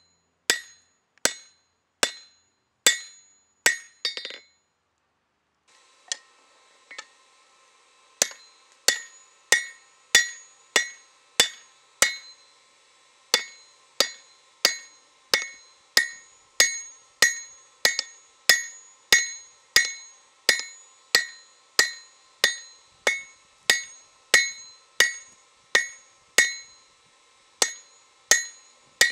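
Hand hammer striking a hot steel sword blade on an anvil in a steady rhythm, about one and a half blows a second, each blow a bright ringing clang. The blows pause briefly about four seconds in, then carry on at the same pace over a faint steady hum.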